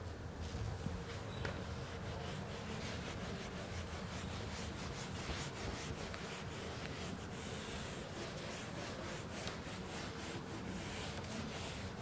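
Whiteboard being wiped clean with an eraser: repeated quick rubbing strokes across the board's surface.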